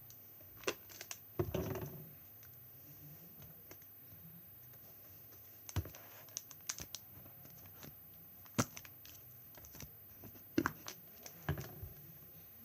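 Homemade glossy slime squeezed and stretched by hand, giving scattered sharp clicks and short squelchy crackles a second or two apart.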